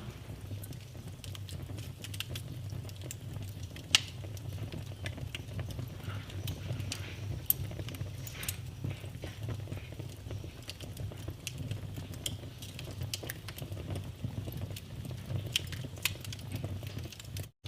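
Fire in a fireplace crackling, irregular pops and snaps over a low steady rumble, with the sharpest pop about four seconds in.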